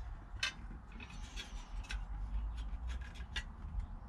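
Hands handling and fitting small centre-console parts, making light rubbing and scattered ticks with three sharper clicks about a second and a half apart, over a low steady hum.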